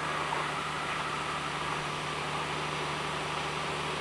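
Steady hiss with a low hum underneath, even throughout with no distinct event.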